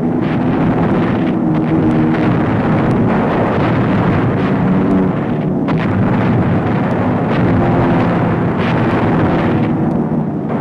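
Continuous heavy rumble of bombing explosions and fire, with a few sharper cracks breaking through, on an old newsreel sound-effects track.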